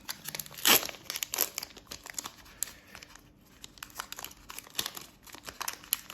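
Foil wrapper of a Pokémon trading-card booster pack crinkling and tearing as it is opened by hand, in quick irregular rustles, loudest a little under a second in.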